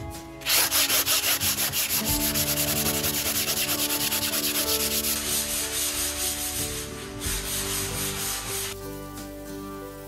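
240-grit sandpaper on a hand sanding block rubbing back and forth over dried putty on plasterboard seams, in quick even strokes about four a second, stopping about nine seconds in. The joints are being sanded until no step remains. Background music plays underneath.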